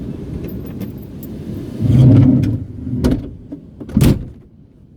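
Invacar being got ready to drive: a steady low rumble, a louder rumble about two seconds in, then a click and a sharp knock about four seconds in as its sliding door is shut.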